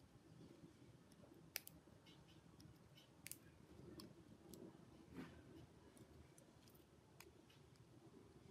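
Faint, scattered clicks and taps of small hand tools on phone parts during a repair: about four sharper ticks a couple of seconds apart, over a low steady room noise.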